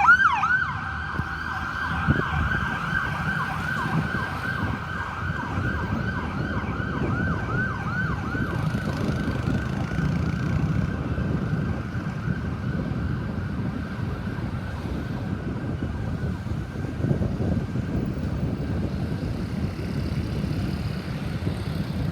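Ambulance siren sounding a fast yelp of about three sweeps a second. It drops sharply in level within the first second, then fades away over the next ten seconds or so as it recedes. Steady road-traffic rumble runs underneath.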